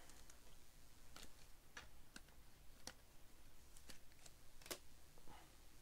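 Faint scattered ticks and flicks of trading cards being handled and flipped through by hand, a sharp little click every half second or so.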